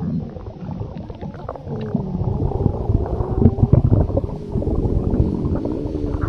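Stomach rumbling sound effect: a long, continuous low gurgling rumble with wavering squeaky glides in pitch and small pops.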